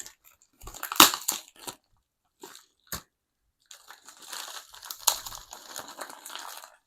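A mailed package being opened by hand: packaging crinkling and crunching, with a sharp crackle about a second in, a few single clicks, then a longer stretch of rustling and crinkling from about four seconds in.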